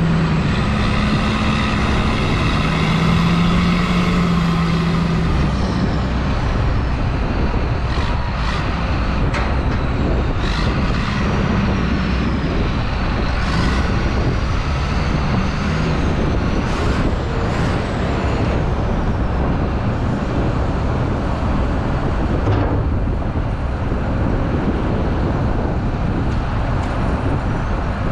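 Caterpillar IT28F loader's diesel engine revving and working as the machine pulls away, over a steady low engine rumble. A handful of sharp clanks come in the middle.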